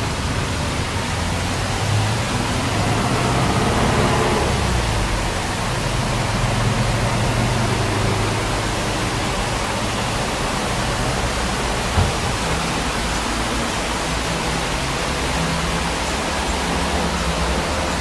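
Steady, even hiss with a low hum underneath, and a single short knock about twelve seconds in.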